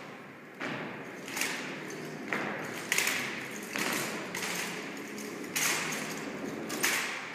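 About seven sharp thuds at uneven spacing, each ringing on in a large hall: a rifle drill team's rifles and boots striking the floor during a drill routine.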